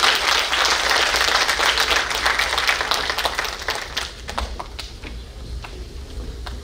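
Audience applauding, a dense clapping that thins out about four seconds in to a few scattered claps.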